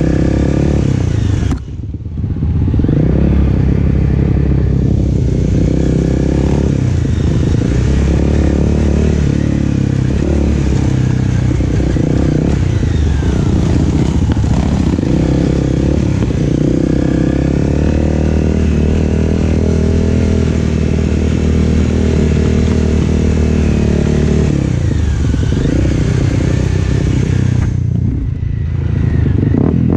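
An off-road vehicle's engine running under load, its pitch rising and falling with the throttle, with a brief let-off about two seconds in and again near the end.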